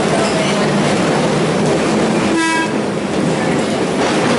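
A vintage streetcar running along its track, heard from inside the wooden car as a steady rumble of wheels on rail. About halfway through comes a short pitched toot.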